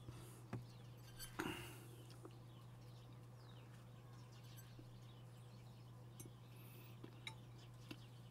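Near silence over a steady low hum, with a few faint clicks and clinks of eating from a plate: two louder ones in the first two seconds, then light ticks.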